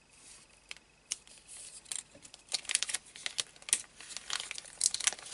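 Thin plastic pocket sheet and a paper strip crinkling and crackling as they are handled, a run of sharp crackles that gets busier about halfway through.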